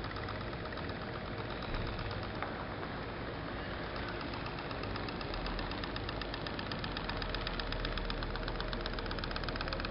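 Homemade pop-pop steam boat engine running: a rapid, steady popping of several pops a second that grows louder and clearer about halfway through.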